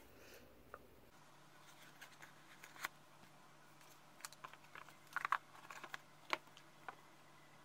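Faint clicks, taps and scrapes from handling a small cardboard jewelry box as a foam insert is set in and the lid is fitted on. The loudest are a quick cluster a little past five seconds and one sharp click a little past six seconds.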